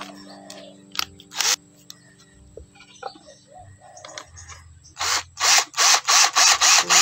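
Cordless drill driving a screw through a small wooden block into a plywood board, running in a quick series of short bursts, about three a second, in the last two seconds. Background music with steady tones plays underneath.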